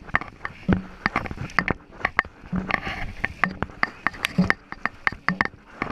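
Dragon boat crew paddling hard at racing pace: with each stroke a cluster of splashes and knocks from the paddle blades hitting and pulling through the water, about one stroke a second.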